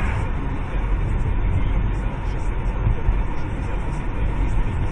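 Steady low rumble of a moving car heard from inside its cabin: road and engine noise picked up by the dashcam.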